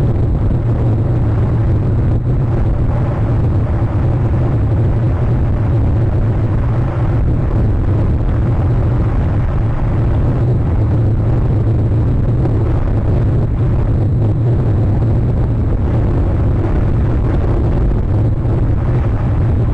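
Steady, loud wind rumble buffeting an outdoor camera microphone, with no distinct events.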